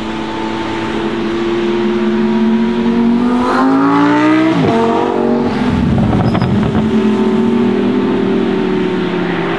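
Several supercar engines, the Mercedes-AMG One's among them, run steadily at low speed. About four seconds in, one car accelerates past close by: its engine pitch climbs sharply and then drops. After that comes a louder, rougher engine sound as the next cars move off.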